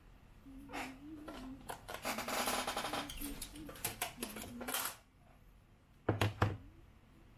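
A wavering, pitched vocal sound lasting about four and a half seconds, then two sharp knocks about six seconds in as the coach's LED lighting strip is handled on the workbench.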